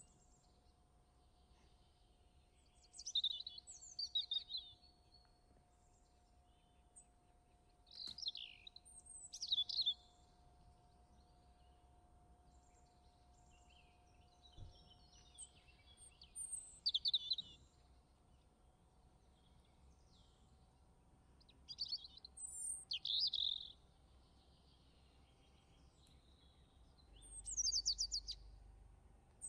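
A songbird singing in five short phrases of quick, high chirps and trills, a few seconds apart, over a faint steady hum.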